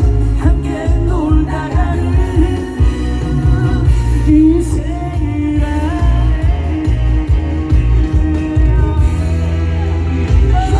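Live pop-rock band music with singing over a strong bass and drum beat.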